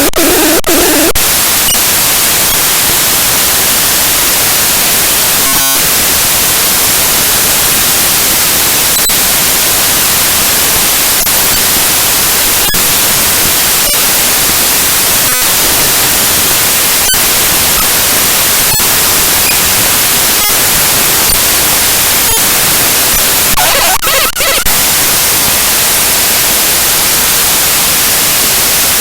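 Loud static-like hiss from a file's raw data played directly as audio, broken by a few brief dropouts, with short stretches of buzzy tones at the start and about 24 seconds in.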